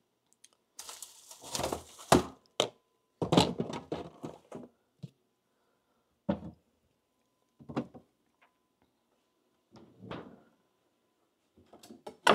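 Refrigerator door opening and closing, with knocks and thunks of things being shifted and set down inside. The busiest clatter comes from about one to five seconds in, then a few separate knocks, and a sharper knock near the end.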